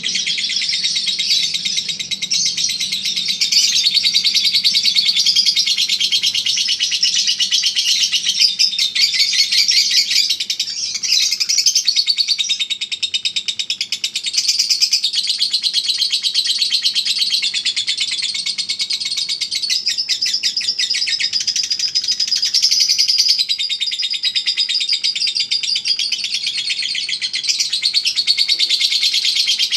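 A lovebird's ngekek: a long, unbroken, rapid high-pitched chattering song, the sustained trill that Indonesian bird-song contests judge by its duration.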